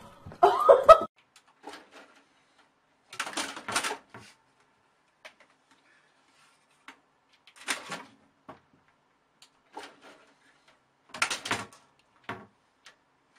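A cat scrambling up a fabric curtain and the side of a computer tower, claws scratching and the curtain rustling in short scattered bouts a few seconds apart. A brief loud cry comes in the first second.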